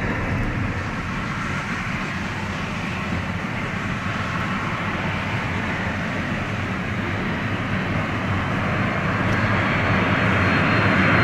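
Jet engine noise from a KLM Boeing 747-400 on final approach, a steady rush that slowly grows louder as the aircraft nears, with a thin high whine joining near the end.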